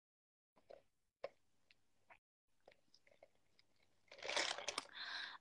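Close-up mouth sounds of a person chewing, with faint small clicks at first and louder from about four seconds in.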